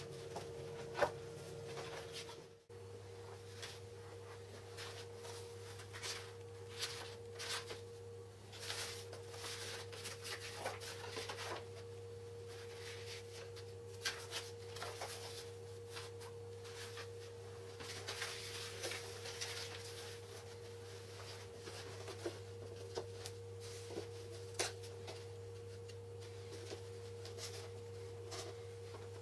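Scattered light clicks, taps and brief rustles from handling tools, paper and boards on a workbench, over a steady hum and a faint steady tone.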